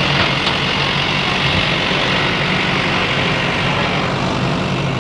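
Heavy diesel engine of construction machinery running steadily, with a steady hiss over the low engine hum.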